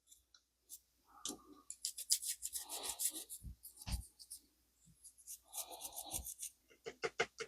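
Brush scrubbing the dirty universal bar of a 1919 Molle No. 3 typewriter in quick scratchy strokes, in two spells with a short pause about halfway through.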